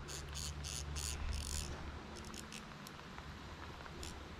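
Insects chirping in a regular rhythm of about four high-pitched chirps a second, which thins to a few scattered ticks about halfway through, over a faint, steady low rumble.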